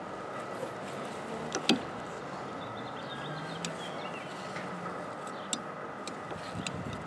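A few light clicks and taps from a rear wiper arm being handled and fitted onto its pivot shaft, over a steady outdoor background hiss.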